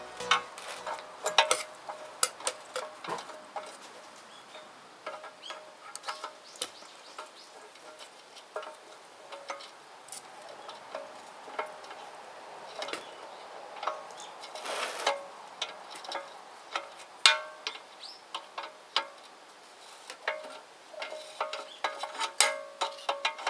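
Metal parts and tools clinking and tapping at irregular intervals, some strikes ringing briefly.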